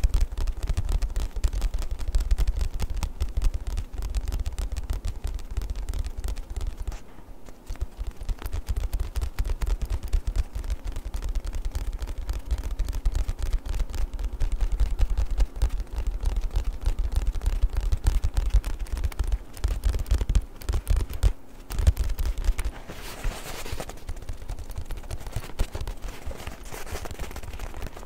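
Fast, irregular tapping on a book, with dense quick taps and dull thuds. There is a short pause about seven seconds in, and a softer rustling scratch near the end.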